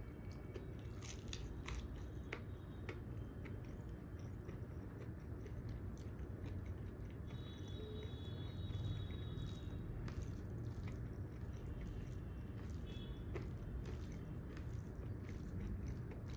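Close-miked mouth sounds of a person eating: chewing and biting food, with many small wet clicks and smacks over a steady low hum.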